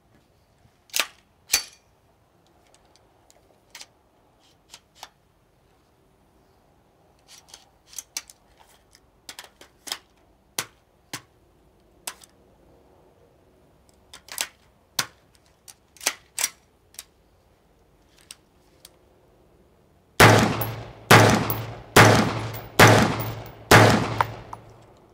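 AR-15 rifle being handled, with scattered metallic clicks and clacks, then five loud single shots about a second apart near the end, each trailing a long echo under the range roof.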